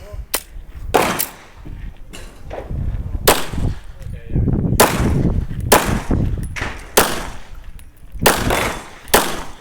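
Smith & Wesson M&P 9 pistol firing a string of 9mm shots during a timed defensive-pistol stage: about eight sharp reports spaced roughly a second apart, with uneven pauses between them.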